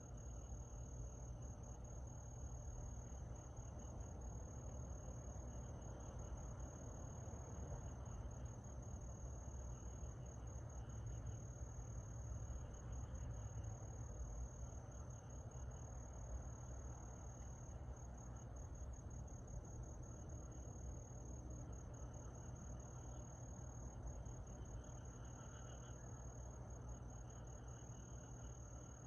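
Summer night insects, crickets among them, chirping: one steady, high, unbroken trill with a softer pulsing chirp beneath it. A steady low rumble runs underneath.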